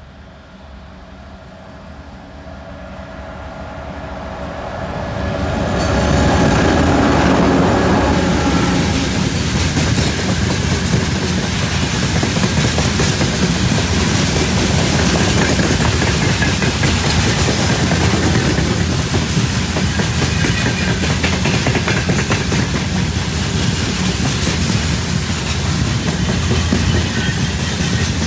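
Two ST44 (M62-type) diesel locomotives with two-stroke V12 engines approach, their engine note growing louder over the first six seconds as they pass. Then a long string of open freight wagons rolls past, the wheels running over the rails in a steady, dense noise.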